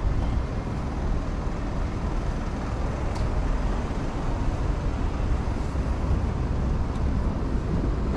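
Steady city street traffic noise: an even low rumble of cars and other vehicles passing on the road alongside.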